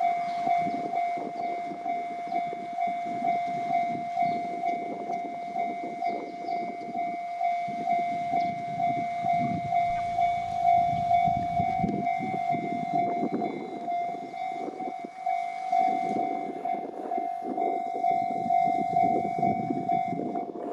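Japanese level-crossing alarm ringing with a steady, rapidly repeating electronic ding while a train passes over the crossing, its wheels clattering and rumbling over the rails.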